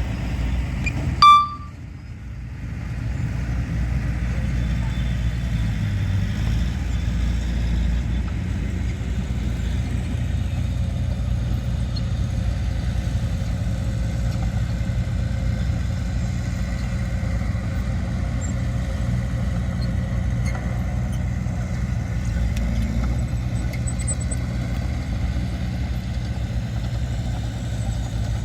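Diesel engine of heavy earthmoving machinery running steadily with a deep drone. About a second in there is one short, loud, high beep; the sound drops away briefly after it, then the engine drone comes back and holds steady.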